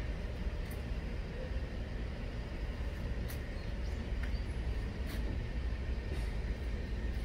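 Steady low outdoor rumble, like street traffic, with a few faint clicks.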